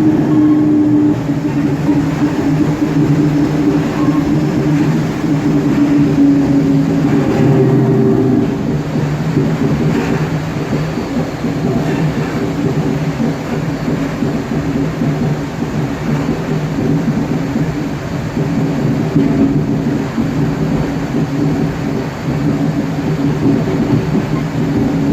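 CPTM Série 1700 electric multiple unit (Mafersa-built, Hitachi equipment) heard from inside the passenger car, its traction motors giving a steady multi-tone hum over the rumble of the wheels on the track. This is car 1726, whose traction sound runs somewhat louder than most of its series.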